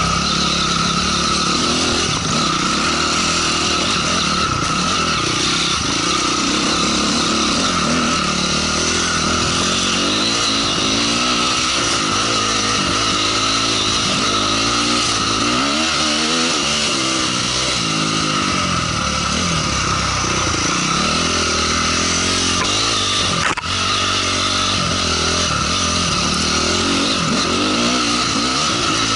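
Honda CRF250R dirt bike's single-cylinder four-stroke engine running under load on a trail ride, its pitch rising and falling with the throttle, heard through a helmet camera. A single sharp knock comes about three-quarters of the way in.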